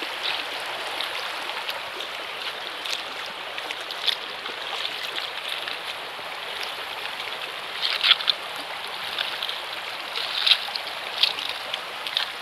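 Shallow river water running steadily over a gravel and pebble bed, with a few sharp footsteps splashing and crunching on the wet stones, the loudest about eight and eleven seconds in.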